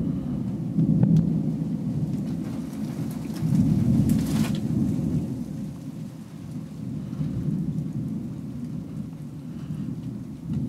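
Long rolling thunder rumble, swelling a few times in the first half and then slowly dying away.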